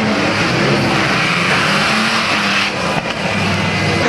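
Unlimited banger race cars racing, several engines running at once at different pitches over a steady rush of noise.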